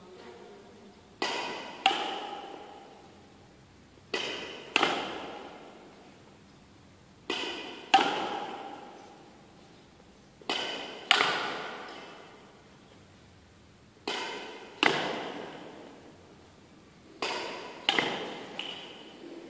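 Badminton racket strikes on a shuttlecock in a backhand drill: sharp hits in pairs about 0.7 s apart, one pair every three seconds or so, each hit ringing out with echo.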